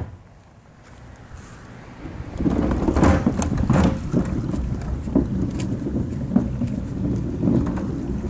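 Low wind and handling rumble on a phone microphone that swells up about two seconds in, with scattered light slaps of flip-flop steps on wet concrete.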